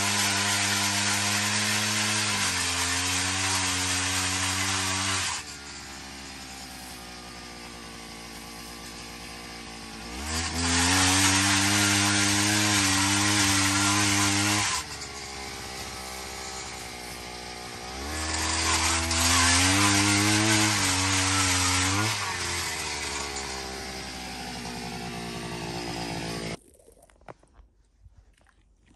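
Cordless drill driving a spiral ice auger as it bores through lake ice. The motor runs in three loud spells with quieter running between, then cuts off about three seconds before the end.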